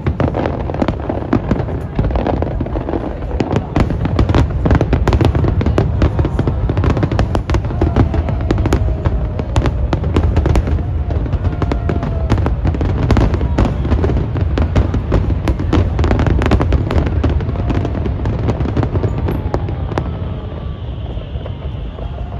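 Aerial fireworks in a dense barrage: a continuous rapid stream of booms and crackling bursts from many shells going off together, over a deep rumble.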